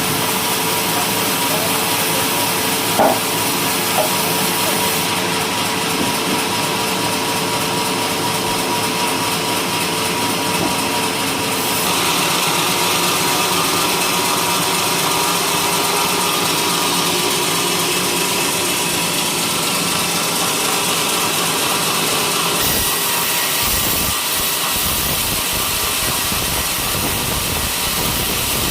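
Homemade sawmill running and sawing a coconut-palm log, a steady mechanical whine and rasp that changes character about twelve seconds in and again about ten seconds later.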